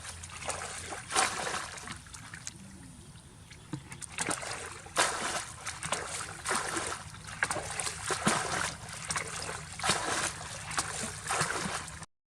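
Water splashing and trickling in an irregular series of strokes, cutting off suddenly near the end.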